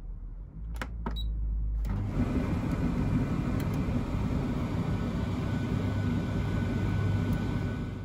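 Beko condenser tumble dryer starting a drying cycle: two short clicks about a second in, then the drum motor and fan start and run with a steady hum.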